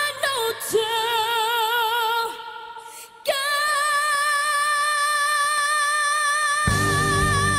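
Music: a solo voice singing long held notes with vibrato. It fades briefly about two and a half seconds in, then takes up a new held note, and drums and other instruments come in near the end.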